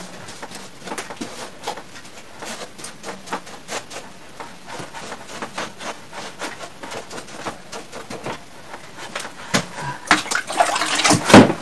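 Hand scrubbing of the soaped evaporator coil fins of a split air conditioner's indoor unit: a run of short irregular scrubbing strokes, with louder knocks and rustling near the end.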